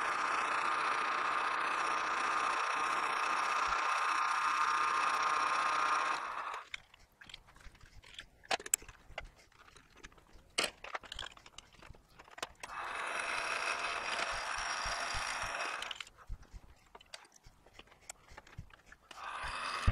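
Metal lathe running with a steady whine; it stops about six seconds in, followed by the clicks and knocks of the part being loosened and turned around in the chuck. The lathe runs again for about three seconds from thirteen seconds in, stops for more clicking and handling, and starts up again near the end.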